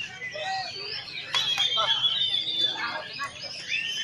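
Several caged white-rumped shamas (murai batu) singing at once, a dense mix of overlapping whistles, chirps and rising and falling phrases, with a crowd of people talking underneath.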